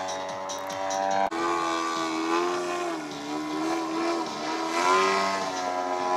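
Radio-controlled aerobatic model plane's engine and propeller running in flight, the pitch rising and falling several times with throttle changes as it manoeuvres. There is a sudden break about a second in, and it is loudest near the end.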